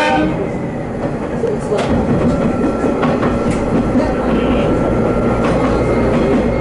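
Hymo 330 diesel railcar running along the line, heard from inside: a steady rumble of engine and wheels on rail with a few faint rail-joint clicks. The tail of a horn blast cuts off right at the start.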